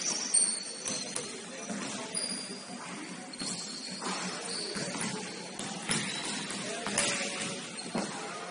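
Basketball game in a gym: sneakers squeaking on the court floor, a ball thumping at irregular intervals, and voices in the background.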